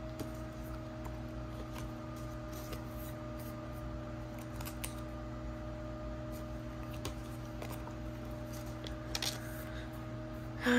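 Quiet handling of photo cards and plastic card sleeves: soft, scattered clicks and rustles over a steady low electrical hum.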